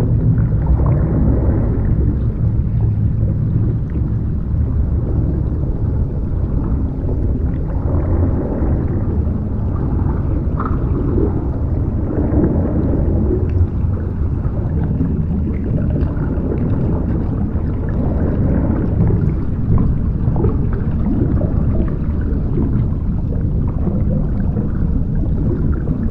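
Underwater ambience: a steady low rumble and muffled gurgling of water heard from below the surface, with small swells and faint clicks.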